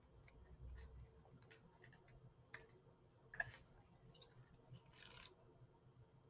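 Faint handling of paper strips on a tabletop: scattered light clicks and taps, two sharper ticks about two and a half and three and a half seconds in, and a short paper rustle about five seconds in.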